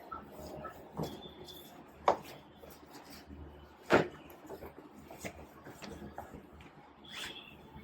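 Scattered light clicks and knocks of small objects being picked up and set down, the loudest about four seconds in.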